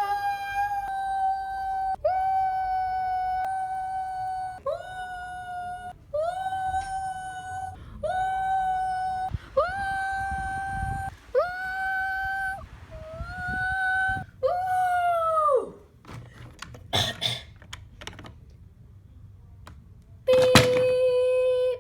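A person's voice wailing a high, steady note over and over, about ten times. Each note scoops up at the start and holds for about a second, and the last one slides down. A few clicks follow, then a lower held note begins near the end.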